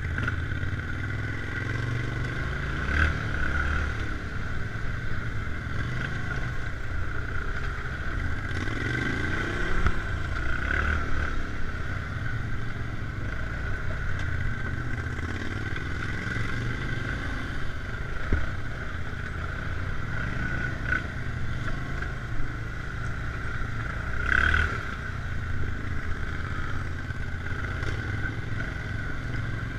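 ATV engines running at trail-riding speed, a steady low rumble with a constant high whine over it, and a few short knocks from bumps along the way.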